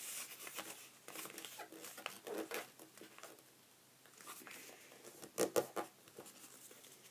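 A sheet of paper being folded and creased flat against a tabletop by hand: soft, faint rustling and sliding of paper, with two louder short crinkles a little past the middle.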